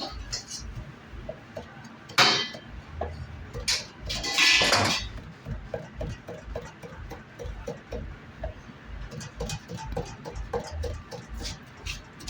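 Kitchen handling sounds: utensils and dishes clinking and knocking at irregular intervals, with two brief hissing rushes about two seconds and four and a half seconds in.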